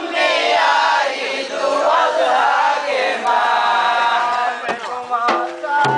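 Group of men's voices chanting together, with a few sharp hand-drum strokes near the end.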